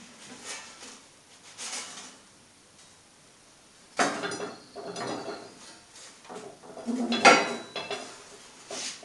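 Heavy 10 mm stainless steel plate, partly cut through, pushed and rocked by gloved hands against a wall: irregular metallic clanking and scraping. A few faint knocks come first, then the clatter starts suddenly about four seconds in and is loudest about seven seconds in.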